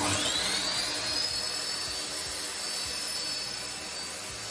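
Ryobi compound mitre saw's motor spinning up with a steeply rising whine that settles within about a second into a steady high whine. Underneath, a wet/dry shop vacuum runs steadily for dust extraction, switched on through the saw's blade guard release.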